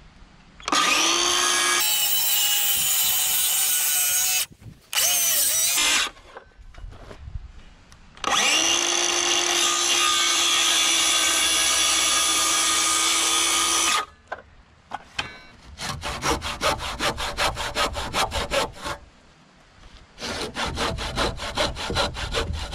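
DeWalt cordless circular saw cutting a birdsmouth notch into a two-by rafter in three runs, two short and one about six seconds long, the blade spinning up at each start. Then a handsaw finishes the notch with quick back-and-forth strokes in two runs.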